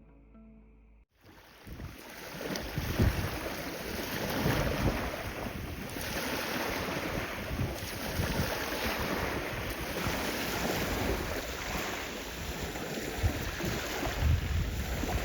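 Wind buffeting the microphone over the wash of sea waves, starting suddenly about a second in as the music ends.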